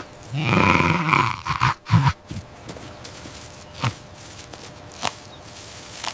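An animal's low call about half a second in, lasting about a second, and a shorter one near two seconds, followed by a few single sharp knocks.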